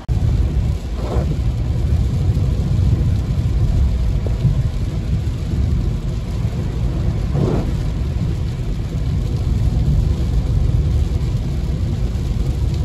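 Car driving on a wet freeway in heavy rain, heard from inside the cabin: a steady, loud low rumble of road and tyre noise with rain on the windshield.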